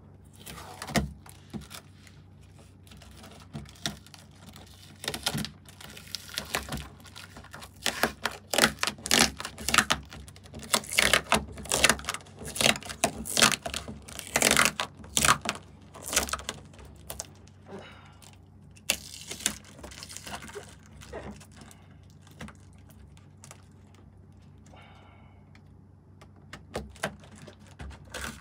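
A cardboard box being opened by hand: runs of sharp crackling clicks and scrapes as the cardboard and packing are pulled and handled. The clicks are busiest in the middle and thin out into a quieter stretch, with a few more near the end.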